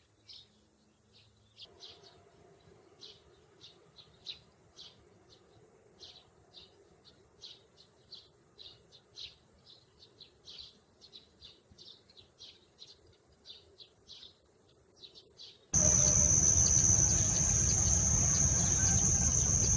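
Sparrow chirping: short, high chirps a few times a second in an irregular run. Near the end a much louder steady noise with a high whine cuts in suddenly.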